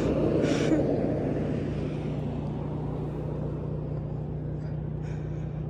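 Steady low hum of a car engine idling. Over it, road noise from a passing vehicle swells and fades over the first couple of seconds.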